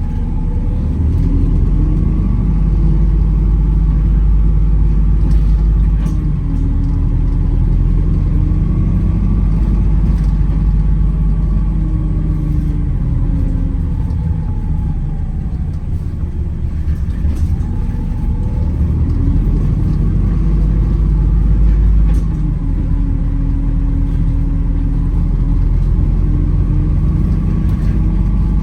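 Wright Gemini 2 hybrid double-decker bus heard from on board while driving: a steady low rumble with the drivetrain's pitch rising and falling several times as the bus speeds up and slows down.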